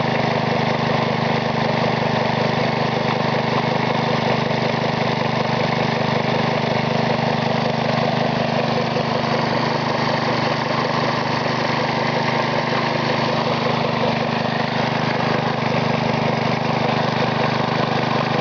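Briggs & Stratton lawnmower engine, converted to an air compressor with a retarded, reground camshaft, running steadily as it pumps air into a storage tank that has topped out at about 22 psi.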